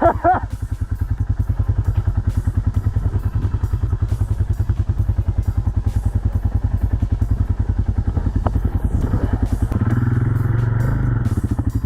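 Snow bike's engine running at low revs with a steady, even putter while stuck in snow, then revved up harder for a second or two near the end.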